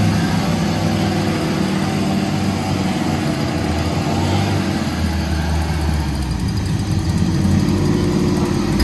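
Off-road competition truck engine idling steadily close by.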